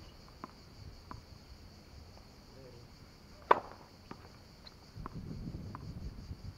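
Tennis serve on a hard court: a couple of faint ball bounces, then one sharp crack of the racket striking the ball about three and a half seconds in.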